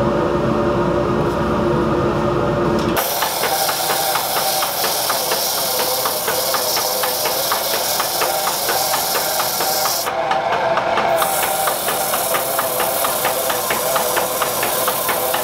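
Fine sandpaper hissing against a wooden mallet head spinning on a foot-powered treadle lathe, with a rapid, even ticking running through it. For the first three seconds there is a steady low hum instead, which stops abruptly.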